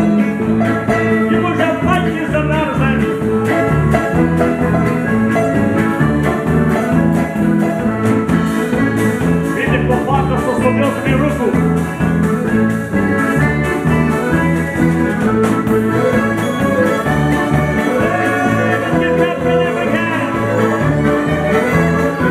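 Live Ukrainian old-time fiddle music: fiddle lead with button accordion over a steady, regular bass beat.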